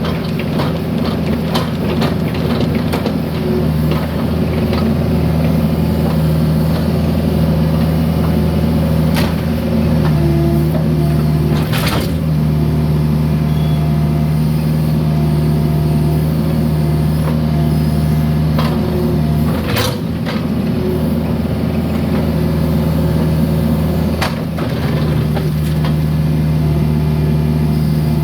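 A mini excavator's diesel engine running steadily, its note swelling and easing as the hydraulics work, with occasional sharp clanks of the bucket striking and scraping concrete.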